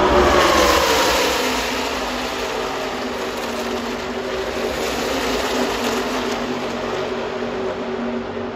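A pack of NASCAR Truck Series V8 race trucks running past, their engine note dropping in pitch as they go by in the first second or so. It then settles into a steady drone as the field heads away into the turn.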